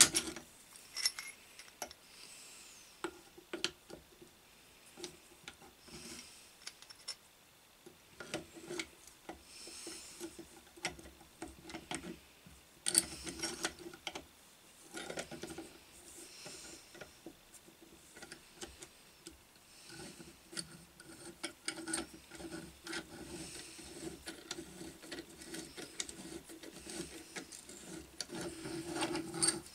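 Gear puller being fitted and adjusted on the end of an electric motor: irregular clicks, taps and rubbing of its legs and screw against the motor housing.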